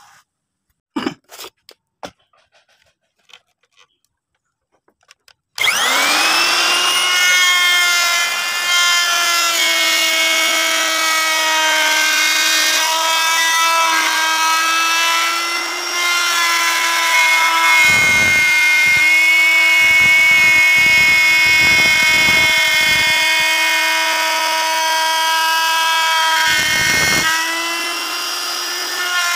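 A few light knocks, then about five and a half seconds in a Modern electric wood router switches on, spins up with a rising whine, and runs at a steady high whine as its bit cuts into the wooden panel, with rougher noisy stretches in the second half.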